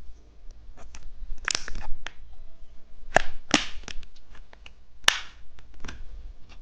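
Plastic candy packaging crinkling and crackling as it is handled, with several sharp snaps among the lighter clicks.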